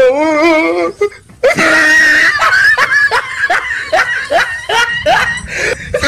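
Dubbed comedy laugh sound effect. A wavering, warbling voice lasts about a second, then after a short pause comes a long run of quick cackling laughs, about three a second.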